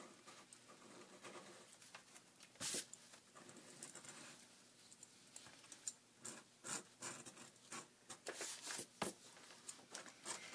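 Book repair knife scraping and cutting old paste-down paper along the edge of a book's cover board, in short, faint, scratchy strokes, a few of them louder.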